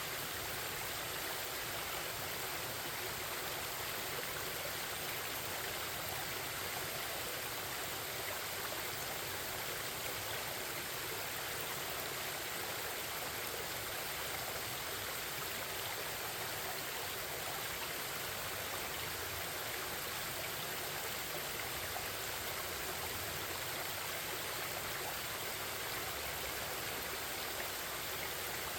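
A forest stream flowing and babbling steadily, an even rush of water with no breaks.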